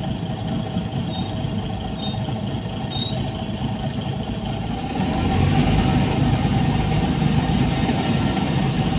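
Mercedes-Benz O405N2 city bus heard from inside the passenger cabin: steady engine and road rumble, which rises in pitch and grows louder about five seconds in as the bus speeds up.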